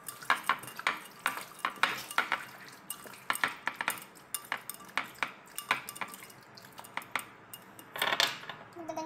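Gloved hands mixing raw chicken pieces in marinade inside a food-storage container: irregular clicks and knocks against the container, several a second. Near the end there is a longer scraping noise.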